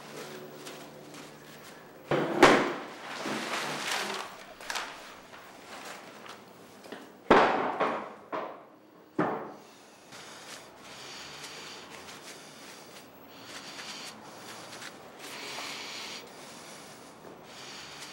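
Rubbing and wiping strokes across a textured relief canvas, worked slowly so the raised surface is not damaged, with three sharp knocks, the loudest about two seconds in and others near seven and nine seconds.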